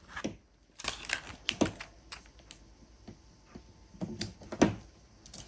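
Irregular light clicks and taps from hands handling paper and tape craft materials on a tabletop.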